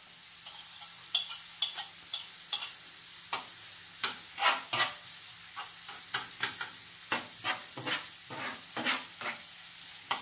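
Chopped red onion and garlic sizzling in olive oil in a frying pan while they soften, with a metal spoon stirring through them and clicking and scraping against the pan at irregular intervals.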